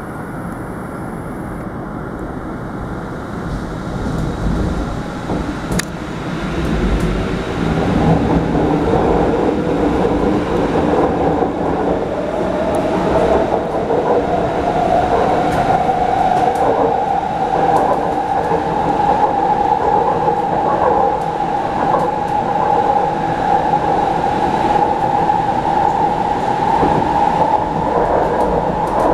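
Interior of an MTR C-Train pulling away from a station: after a few quieter seconds the running noise builds, and the traction motors' whine climbs steadily in pitch as the train accelerates, then holds a steady tone at cruising speed over the rumble of the wheels on the track.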